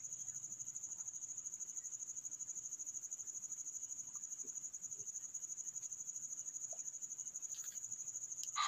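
Crickets chirping in a steady, rapid, high-pitched trill.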